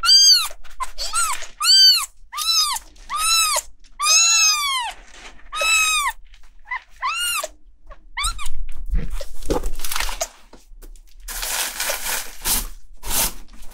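A newborn kitten mewing over and over, about ten high-pitched cries that each rise and fall, roughly one every three-quarters of a second. Near the end of the cries and after them come rustling and handling noises.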